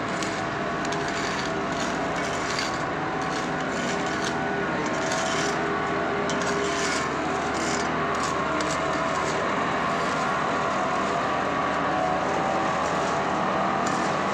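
Tracked asphalt paver's diesel engine running steadily, with irregular rasping scrapes of rakes and shovels working through fresh asphalt mix.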